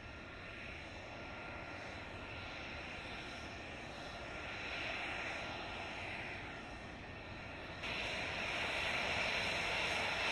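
F-35 fighter jet's F135 turbofan running as the jet rolls along the runway: a steady jet rush with a faint whine, swelling and then stepping up in level about eight seconds in.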